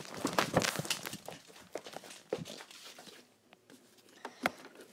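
Handling noise: hands and fabric rustling and clicking right against the microphone, busiest in the first couple of seconds, then quieter, with one sharp click near the end.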